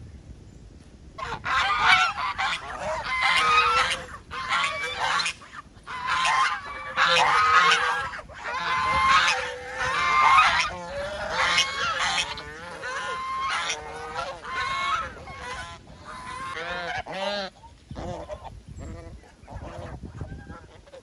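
Flock of domestic geese honking over and over, many calls overlapping, as they crowd in to be fed; the calls thin out near the end.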